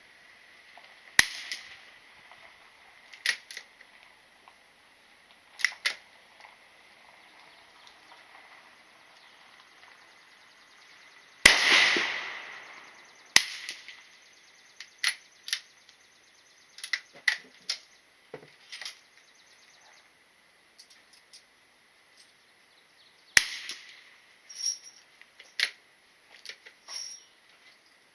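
Gunshots at a shooting range: single shots a few seconds apart, with smaller sharp cracks and clicks between them. The loudest shot, about eleven seconds in, rings on for about a second.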